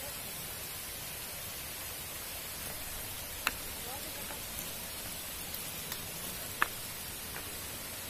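Steady rush of water flowing along a concrete channel, with two sharp clicks, about halfway through and near the end.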